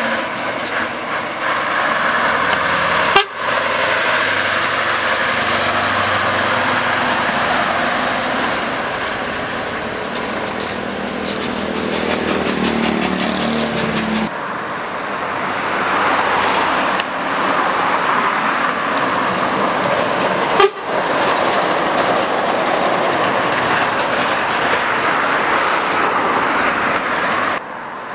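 Scania 164 580's V8 diesel engine running as the truck drives by, its pitch rising as it accelerates about halfway through, before an abrupt cut. A horn sounds, and there are two sharp clicks, one a few seconds in and one about two-thirds of the way through.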